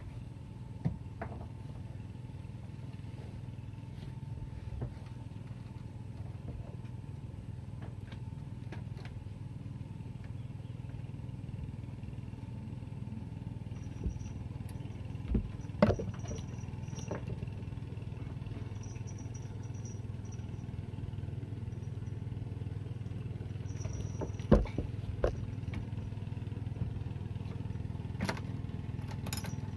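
Small boat engine running steadily with a low hum. A few sharp knocks sound over it, the loudest about halfway through and again about three-quarters of the way through.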